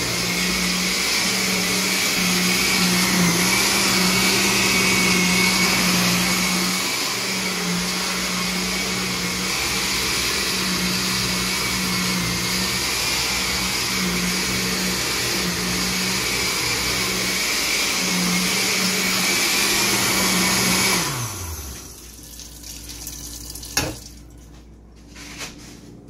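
A loud electric motor appliance running steadily with a whirring hiss and hum, then switched off about 21 seconds in, its pitch sliding down as the motor winds down. A sharp knock follows a few seconds later.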